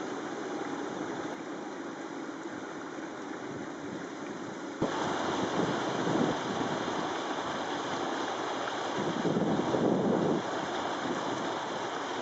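Wind blowing across the microphone in gusts, a rushing noise that jumps up suddenly about five seconds in and swells loudest a little after the middle.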